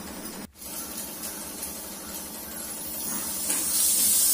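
Pressure cooker on a gas burner hissing steam. About three and a half seconds in the hiss turns much louder and higher as steam escapes at the weight valve, the build-up to a cooker whistle.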